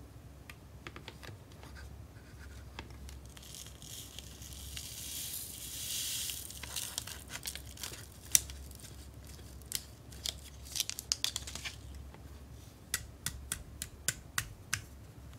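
Foil candy-powder packet crinkling and tearing open in a few seconds of hissy rustling, then the powder poured out with a run of light, sharp clicks and taps from handling the small plastic toy kitchen. One click about eight seconds in is the loudest.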